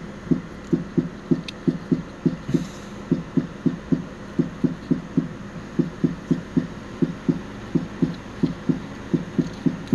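Background music: a steady low thumping beat whose pulses come in quick pairs, about two pairs a second, like a heartbeat.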